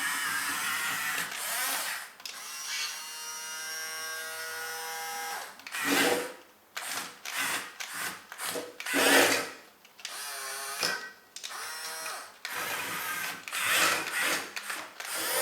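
Small electric gear motors of a Huina die-cast 6-channel RC bulldozer whining in several stretches as it drives and works its blade, stopping and starting, with a couple of louder sudden bursts partway through.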